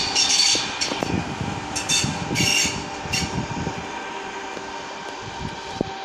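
A train running through station pointwork, heard from inside the carriage: a steady running hum with wheels clacking over rail joints and points, two sharp clacks near the end.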